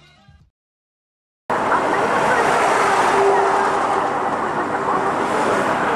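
Steady road and engine noise inside a car cruising on an expressway, cutting in about a second and a half in, after music fades out and a second of silence.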